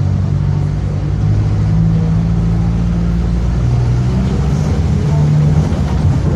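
Mercedes-Benz OF-1722M city bus under way, its diesel engine running and its differential growling. The sound is a loud, low drone that shifts up and down in pitch a few times.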